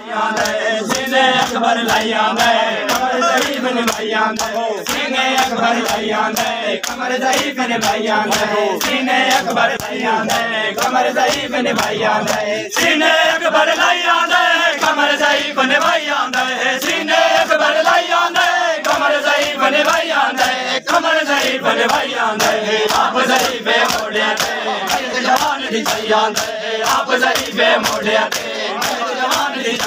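A crowd of men chanting a mourning lament together, over a steady beat of hands slapping bare chests in matam (ritual chest-beating).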